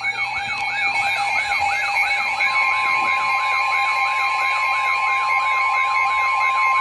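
Electronic tornado-warning alert tones: a siren-like sweep rising and falling about three times a second over steady alarm tones, with another steady tone joining about two and a half seconds in.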